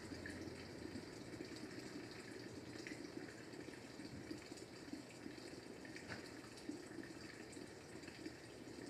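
Faint, steady sound of running water, with a few faint ticks.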